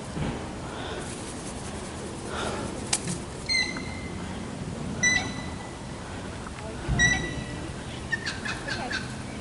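Birds calling: three short, high, clear calls spaced a second and a half to two seconds apart, then a quick run of chirps near the end.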